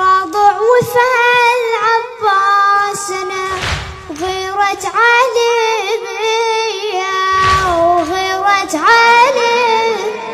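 A child singing a Husayni lament (latmiya) solo in Arabic, holding long, high, ornamented notes in phrases of about four seconds.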